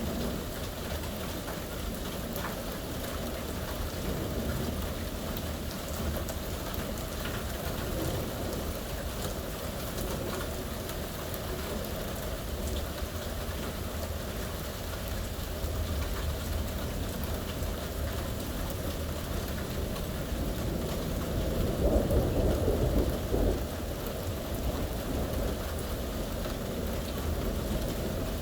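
Steady rain falling, with a low rumble of thunder that swells briefly about three-quarters of the way in.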